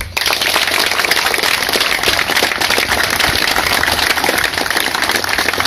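A large crowd applauding, starting abruptly just after the start and keeping up a steady, dense clapping.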